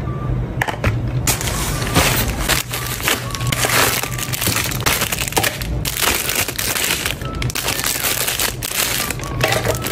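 Thin clear plastic packaging crinkling and crackling as it is pulled open and unwrapped by hand, starting about a second in.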